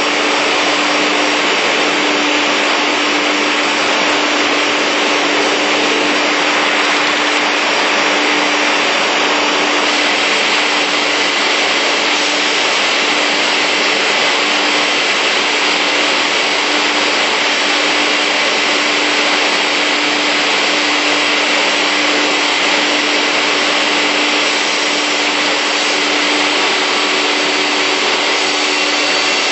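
Industrial panel beam saw running: a steady, even whirring hiss with a constant hum underneath and no distinct separate events.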